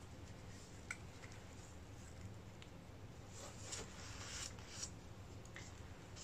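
Faint handling noises as gloved hands work with plastic paint cups: a small click about a second in and soft rustles and scrapes in the middle, over a low steady room hum.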